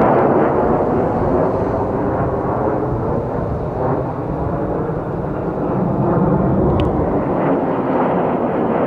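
Military jet engines roaring as a jet passes, loud and steady, easing slightly about halfway through before building again.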